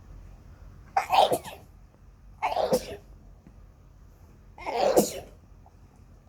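A person sneezing: three loud sneezing bursts a second and a half to two seconds apart, the last one the loudest.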